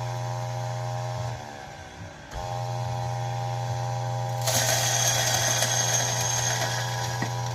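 Electric espresso coffee grinder running with a steady motor hum, running out after the dose. About a second in it winds down and stops, restarts a second later, and about halfway through a harsher grinding noise joins in as beans go through it.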